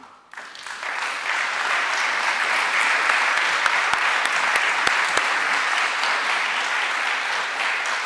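Audience applauding, swelling over the first second and then holding steady.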